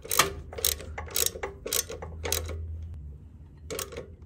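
Hand ratchet wrench clicking in strokes about twice a second while tightening a bolt. It pauses briefly, then makes two more strokes near the end.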